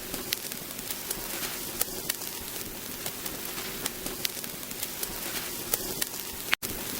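Vinyl LP record surface noise: a steady hiss with scattered crackles and pops. It drops out for an instant near the end.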